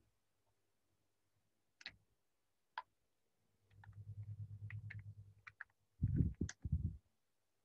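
Computer keyboard keys clicking as a word is typed, with a low pulsing rumble partway through and two heavy low thumps about six seconds in, the loudest sounds.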